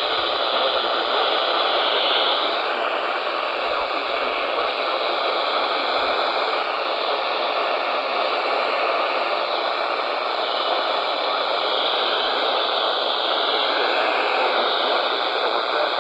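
Steady hiss of radio static from a receiver, with no voice or tones.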